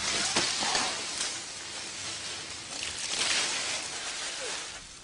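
Rustling of palm fronds and leaves, a rough hiss that swells near the start and again about three seconds in, with a few faint ticks.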